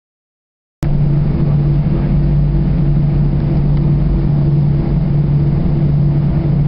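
Jet airliner engines heard inside the passenger cabin: a loud, steady hum and rumble with a constant drone, cutting in suddenly about a second in.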